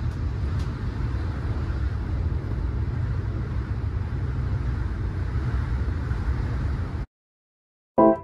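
Steady low rumble of an AREX airport-railroad train in motion, heard from inside the carriage. It cuts off abruptly about seven seconds in, and after a second of silence piano music begins.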